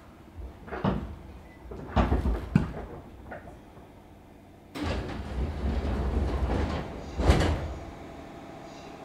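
Passenger doors of a JR 205 series electric train opening at the station, heard from inside the car: a few knocks, then from about five seconds in a rush of noise as the doors slide for two or three seconds, ending in a loud bang about seven seconds in.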